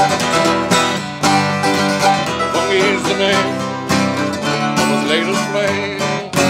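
Mandolin and acoustic guitar playing an instrumental outro of a folk song, strummed and picked chords in a steady rhythm, ending on a final strummed chord near the end that rings on.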